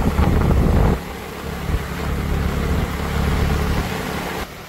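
Wind rumbling on the microphone of a moving motorbike, over its engine running and the hiss of tyres on a wet road. Loudest for the first second, then steadier.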